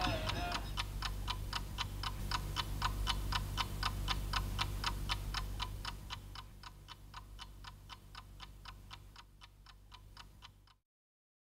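Clock ticking evenly and fast, about four ticks a second, over a low steady hum. It fades gradually from about six seconds in and cuts off suddenly near the end.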